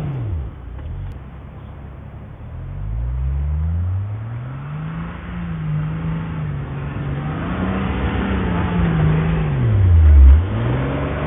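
Land Rover Discovery's engine revving in repeated rises and falls as it labours in soft sand, bogging down rather than climbing. It dips low about a second in, climbs from about three seconds, and drops sharply near the end before revving up again.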